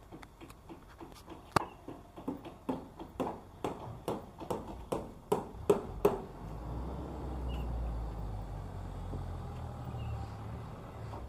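Footsteps at a steady walking pace, about two to three a second, for the first six seconds; then the steps fade and a low steady rumble takes over.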